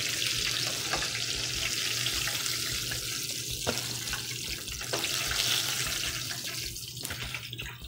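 Battered brook trout sizzling in hot oil in a stainless steel skillet, a steady hiss, with a couple of sharp clicks of metal tongs against the pan as the fish are lifted out. The sizzle dies down near the end.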